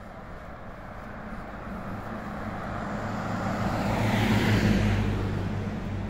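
A motor vehicle driving past: its engine hum and tyre noise swell, are loudest about four and a half seconds in, then fade away.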